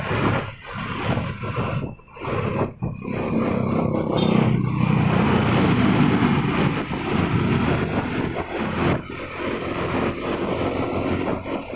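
Vehicle engine and road noise heard while riding along a road, with rushing wind. It gets louder from about four to eight seconds in, as the engine or passing traffic builds.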